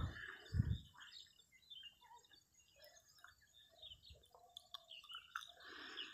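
Faint, scattered bird chirps, with two low thumps in the first second.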